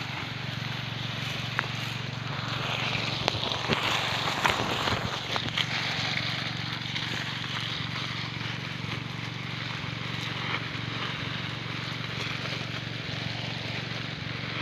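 A hose's water jet spraying up through nutmeg tree foliage and falling back like heavy rain, an even hiss of water on leaves with scattered patters, over a steady low engine hum.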